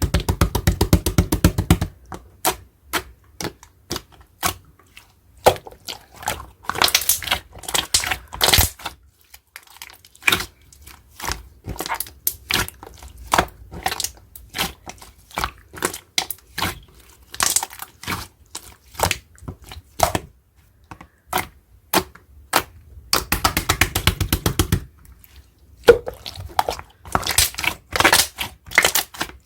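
Slime being squished and pressed by hand, giving sharp clicks and pops, with a fast run of crackling pops at the start and again a little before the end.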